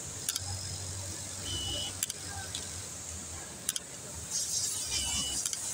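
Steady low hum of industrial sewing machines on a garment factory floor, with a sharp click about every second and a half and faint voices in the background.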